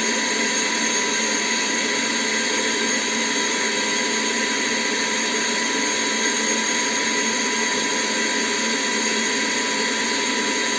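ILife H70 handheld vacuum cleaner running continuously: a steady motor whine over a rushing hiss of air, with no change in speed.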